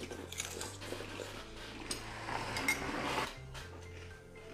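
Metal spoons clinking and scraping against bowls of Cheetos in milk: a few light, scattered clinks.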